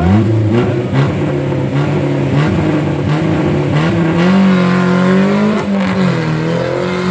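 Off-road vehicle's engine revving up and down under changing throttle. Its pitch drops just before the start, then climbs and dips several times. A few sharp knocks come through about one, two and a half, and four seconds in.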